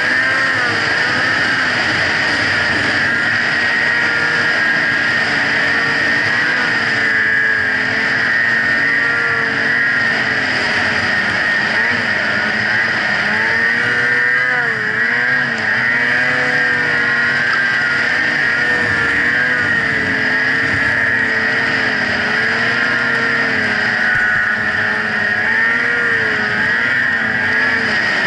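Snowmobile engine running steadily while riding through deep powder snow, its pitch wavering slightly up and down with the throttle.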